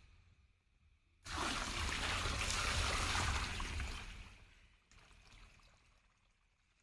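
Water poured into a large clay basin of packaged lump quicklime, a steady pour of about three seconds that starts suddenly and then trails off. The water is being added to slake the lime for whitewash.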